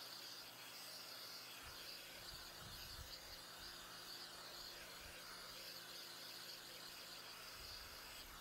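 Faint insect chirping, a steady high-pitched trill that stops right at the end, over a low background hum.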